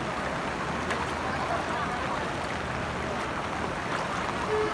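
Floodwater rushing, a steady even noise.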